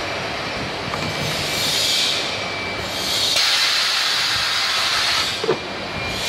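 Blow moulding machine running, with compressed air hissing in strong bursts, the longest starting suddenly about three seconds in and cutting off about two seconds later. A single sharp knock follows near the end.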